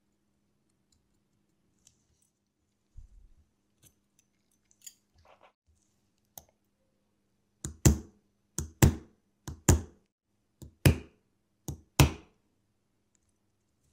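Sharp metal clicks as a watchmaker's screwdriver works at a small watch-movement bridge. There are a few faint ticks first, then about five loud double clicks, roughly one a second, in the second half.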